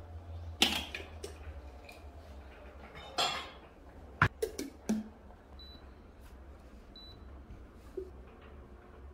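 Kitchen handling sounds: a sharp clack as the metal lid goes onto a glass storage jar, a brief rustle, then a quick run of clicks and knocks, over a low steady hum.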